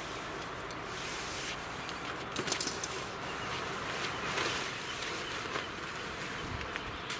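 Nylon rainfly of a Coleman Cimmaron dome tent rustling and swishing as it is pulled off the tent frame, with a few sharp clicks about two and a half seconds in.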